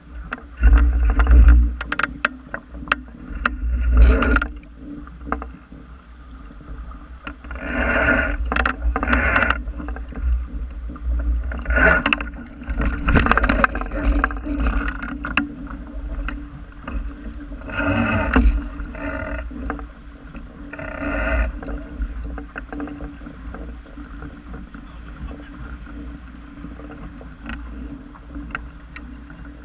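Water splashing and rushing against the bow of a small wooden sailing dinghy under way, coming in irregular louder surges over a constant low rumble, and easing off in the last several seconds.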